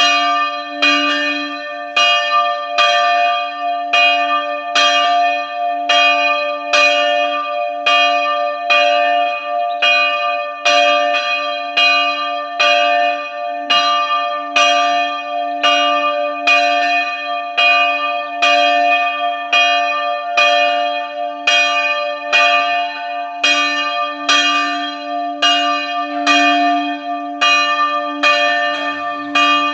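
Church bell struck over and over at an even pace, about three strikes every two seconds, each strike ringing on into the next under a steady low hum: the bell rung for a feast-day Mass.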